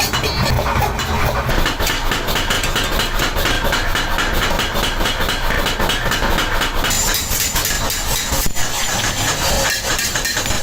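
Metalworking machine running steadily with a rapid, even knocking, several knocks a second.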